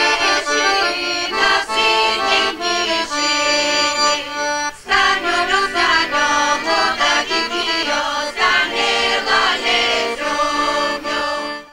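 Accordion playing a lively Bulgarian folk tune, with a brief break about five seconds in.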